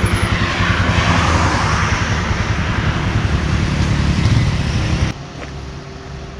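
Motorcycle engine running with a dense low pulse under rushing wind noise, which cuts off abruptly about five seconds in, leaving a quieter engine running on.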